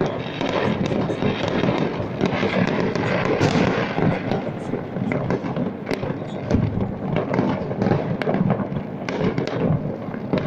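Many fireworks and firecrackers going off at once: a dense, continuous crackle of pops and bangs with no let-up.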